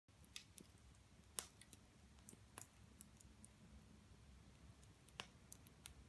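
Faint crackling of a wood fire burning in an open hearth fireplace: scattered sharp pops and snaps at irregular intervals, the loudest about one and a half seconds in.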